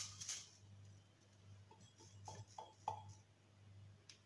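Near silence with a steady low hum and a few faint light taps about two to three seconds in, as sugar is tipped from a small tea glass into a plastic blender jug.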